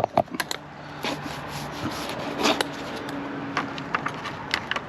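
Scraping and rubbing with scattered light clicks, from working fibreglass resin with a roller in a small pan.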